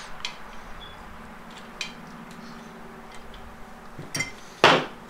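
Light metallic clinks and taps as a Honda A4RA transmission valve body and its small steel valves are handled and worked with a pick: a few scattered clicks, the loudest near the end, over a faint steady hum.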